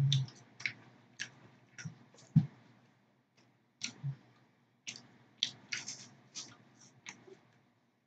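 Chewing French fries: scattered soft crunches and wet mouth clicks, a dozen or so spread unevenly over several seconds.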